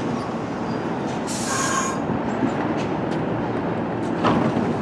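New York City Subway 1 train of R62A cars, steady rumble close by, with a short high-pitched squeal about a second and a half in and a sharp click near the end.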